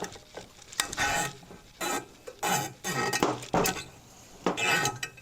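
Steel helicoil thread insert being gripped, twisted and pulled out of the threaded hole in an aluminium Harley Ironhead Sportster engine case with a hand tool: a run of short, uneven metallic scrapes and clinks, some with a brief ring.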